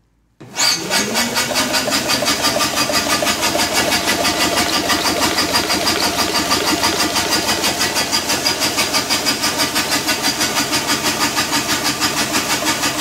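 A Dynastart starter-generator cranking a large single-cylinder engine that has its cylinder head off and no compression. It whirs up to speed about half a second in, then spins the engine over steadily with an even pulse of about six beats a second: it is turning freely at a reasonable cranking speed.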